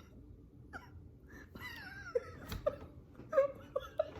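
Soft, stifled laughter: a few short, quiet giggles and breathy snickers in scattered bursts.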